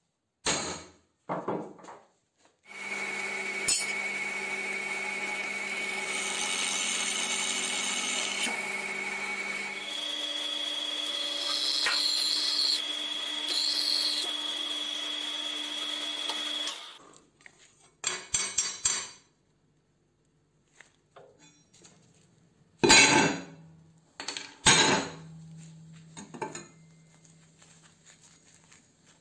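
Drill press drilling steel strip: a steady motor whine with the bit cutting, lasting about fourteen seconds, its pitch changing about ten seconds in. Before it come a couple of sharp clicks from a center punch marking the metal, and near the end two loud knocks.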